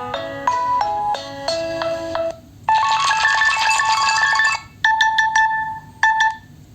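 A Nokia 3.4 smartphone's loudspeaker playing its preset ringtones. First comes a melodic run of clear synth notes. After a brief break there is a denser, brighter tune, then a few short tone phrases that stop about six seconds in.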